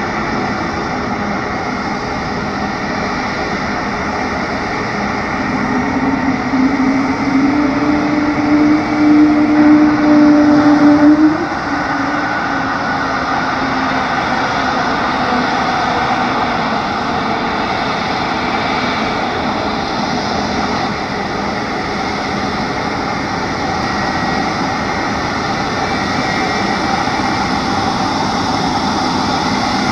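Embraer E190-E2 jet airliner's geared turbofan engines running steadily while the aircraft taxis. A louder low hum swells for several seconds midway and stops abruptly.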